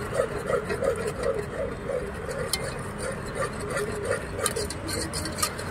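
Wire whisk beating a creamy white mixture in an aluminium pot, a regular swishing about three strokes a second with scattered light clicks, over a steady low background rumble.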